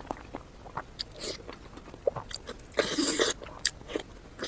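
Close-miked mukbang eating: chewing with small wet clicks and smacks, and a louder burst of chewing about three seconds in.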